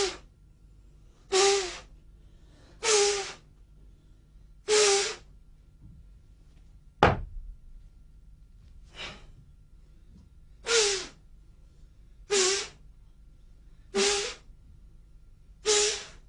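A martial artist's forceful, voiced exhalations, short sharp breath-shouts ("hah") timed to his strikes, the combat breathing used in Emei slapping-method practice. They come about every one and a half seconds, one of them fainter, with a single sharp thump about 7 seconds in.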